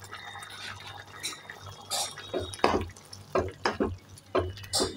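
Metal ladle stirring a simmering chickpea curry in a pan, knocking sharply against the pan about eight times in the second half, over a soft bubbling of the liquid.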